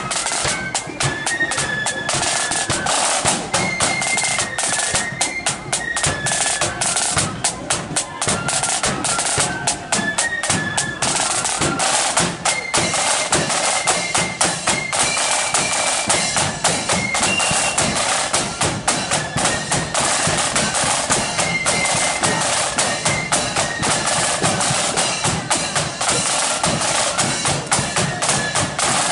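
Marching flute band playing a tune. High flutes carry a stepping melody over rapid snare-drum strokes and bass drum beats.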